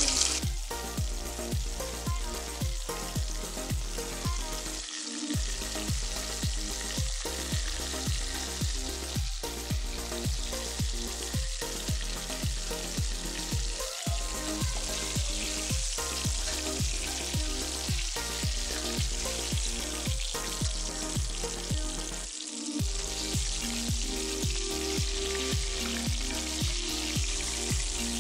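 Coated chicken legs deep-frying in a steel pot of hot oil: a steady sizzle throughout. A rhythmic beat of about two to three pulses a second runs underneath.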